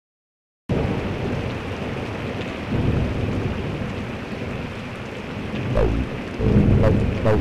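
Steady rain-like hiss with low rumbles of thunder, starting suddenly after a brief silence. About six seconds in, music joins with deep bass notes and falling pitched sweeps.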